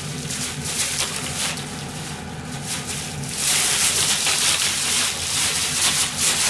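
Thin plastic bag crinkling and rustling as it is handled, louder and denser from about three seconds in, over a steady low hum.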